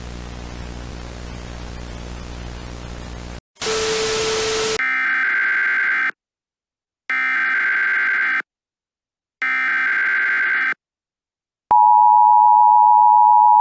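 Static with a low hum, a short burst of noise, then the three data bursts of an Emergency Alert System header, each a little over a second long with a pause of about a second between them. Near the end the steady two-tone EAS attention signal starts.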